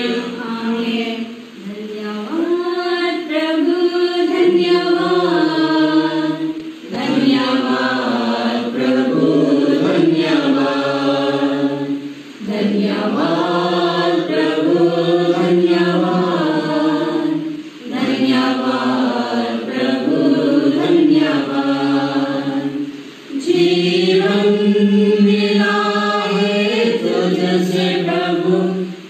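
A small mixed group of men and women singing a devotional hymn together from hymnbooks, in sung phrases of about five seconds with brief pauses for breath between them.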